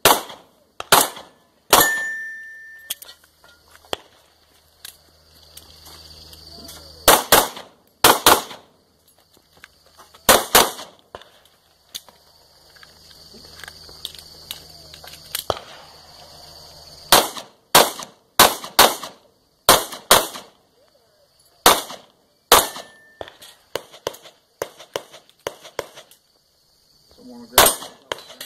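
Pistol shots fired in quick pairs and short strings during a USPSA stage. Between the strings there are pauses of a few seconds, the longest about halfway through.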